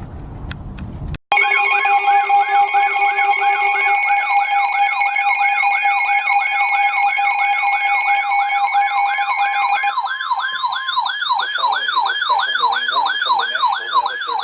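Weather radio alert alarm: a siren tone warbling rapidly up and down, about three sweeps a second, layered over steady alert tones. It starts about a second in after a short burst of noise. The steady tones drop out one by one while the warble carries on.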